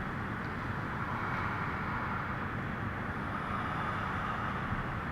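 Steady background room noise, an even hum and hiss with no distinct event.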